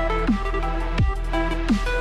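Electronic dance music: a heavy kick drum dropping in pitch about every 0.7 seconds, three times, under held synth notes and a steady deep bass.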